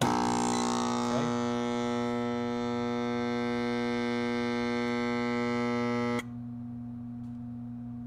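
Emerson HVAC compressor humming loudly with its rotor locked, unable to start because of a weak capacitor, while drawing about 52 amps. About six seconds in the hum cuts off suddenly as the thermal overload opens, leaving a fainter steady hum.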